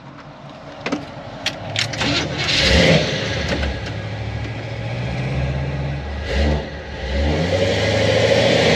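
A few clicks, then the 1972 Chevrolet Monte Carlo's V8 starts about two and a half seconds in and settles into a steady run, with a short rev about six and a half seconds in and the engine getting louder near the end.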